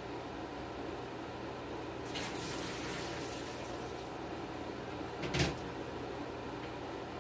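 Water running for about two seconds, then a single knock, over a steady low hum.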